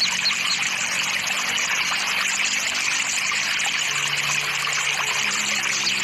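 Steady rushing of flowing water, with a few brief bird chirps at the start. A faint low hum comes in during the second half.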